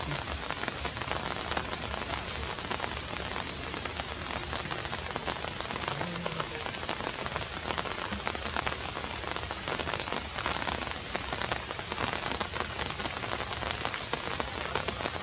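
Steady, even patter like rain falling on forest leaves: a dense fine crackle with no let-up.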